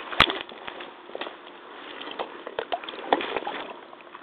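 Rubber hip waders wading in deep muddy water: irregular sloshing and splashing steps, with a sharp click about a quarter second in.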